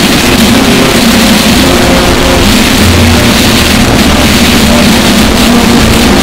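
Bagpipes playing, overdriven and clipped so hard that they come through as a loud, constant wall of distorted noise over a steady drone.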